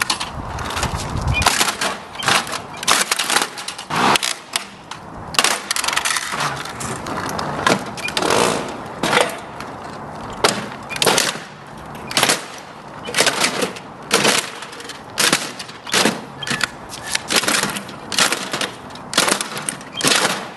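Plastic toy being smashed: a long run of sharp cracks and knocks, roughly one or two a second at an uneven pace.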